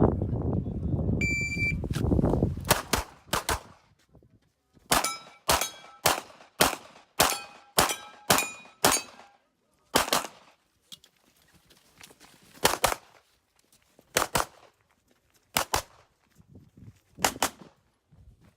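An electronic shot-timer beep about a second in starts the run, then pistol shots: a quick string of about a dozen, then pairs of shots (double taps) spaced a second or two apart. Several shots in the fast string carry a short metallic ring.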